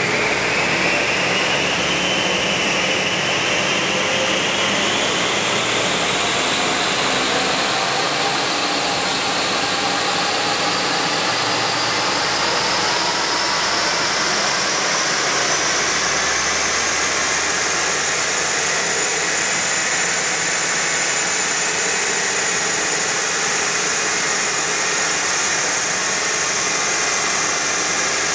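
Smart ForTwo (451) running under load on a rolling-road dynamometer, its whine rising slowly in pitch for about twenty seconds as speed climbs, then levelling off, over the steady rush of a large cooling fan.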